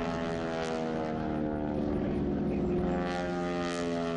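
North American AT-6 Texans' Pratt & Whitney R-1340 Wasp radial engines and propellers droning in flight, the engine note slowly shifting in pitch as the planes move past.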